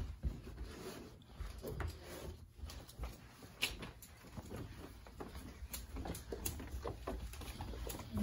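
Quiet shuffling and handling noise, with scattered soft clicks and low knocks.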